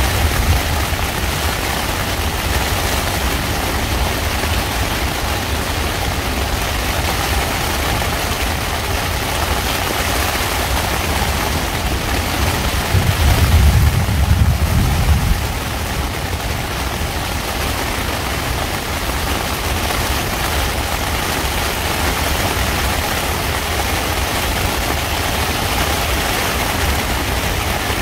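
Thunderstorm heard from inside a tent: rain hissing on the tent fabric over a continuous low rumble, which swells into a louder roll of thunder for about two seconds halfway through.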